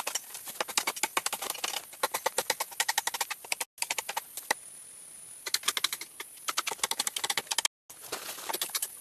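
Rapid, irregular clicking and tapping, many small sharp strikes a second, broken off abruptly a few times.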